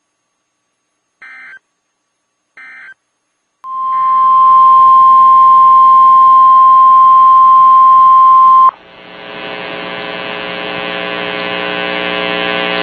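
Two short electronic beeps, then the National Weather Service's 1050 Hz warning alarm tone: one loud, steady tone lasting about five seconds that cuts off abruptly. A steady buzzing hum with many overtones follows and slowly grows louder.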